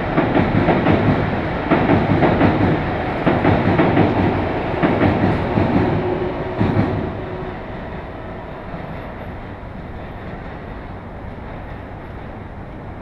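Keikyu Line electric commuter train running over a steel girder bridge, its wheels clattering in a quick rhythm over the rail joints. The clatter dies away about seven seconds in, leaving a steady low rumble.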